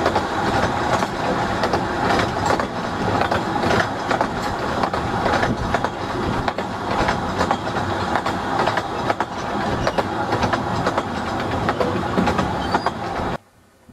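Narrow-gauge (15-inch gauge) train running along the line, its wheels and carriages rattling and clattering with many quick clicks over the track. The sound cuts off suddenly near the end.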